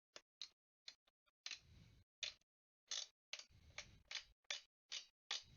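Irregular sharp clicks and ticks, a couple a second, some with a short low rustle, from a stock AMD CPU cooler being seated and fastened onto the motherboard.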